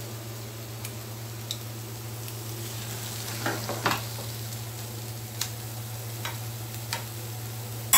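Hot ragi halwa sizzling softly in its ghee in the still-hot frying pan over a steady low hum. A metal fork and spoon scrape and click against the pan and glass bowl every second or so, most sharply about three and a half to four seconds in.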